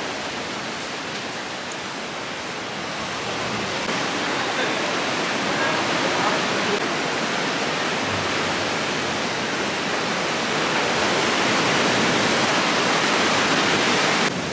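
Ocean surf breaking in a cliff-lined cove, a steady rushing that grows louder over the first few seconds and then holds.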